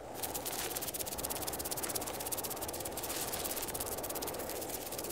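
Designed sci-fi ambience: a rapid, dense crackle of electrical static over a steady low rushing noise.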